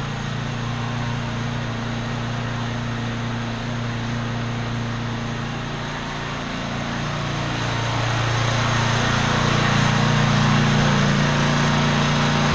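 Small Tecumseh pressure-washer engine running steadily with no load, its pump removed. It gets louder from about the middle of the clip on.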